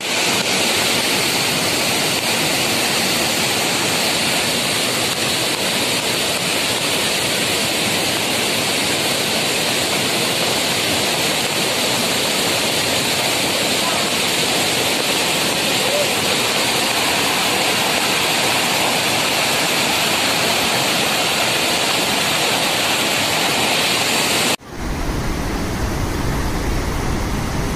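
Loud, steady rush of a torrent of muddy floodwater pouring over rocks. Near the end it cuts to another torrent of white water over rocks, deeper in tone.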